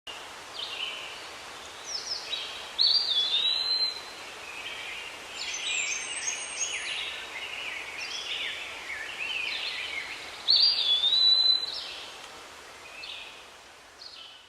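Songbirds singing, with many short chirps and whistles overlapping over a faint steady hiss. One louder phrase, a quick upward sweep into a held whistle, comes twice: about three seconds in and again about ten seconds in.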